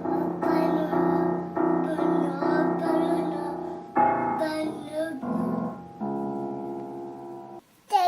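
Electronic keyboard music: a bouncy tune of repeated chords with a higher sung or melodic line over them, ending on one held chord that cuts off abruptly near the end.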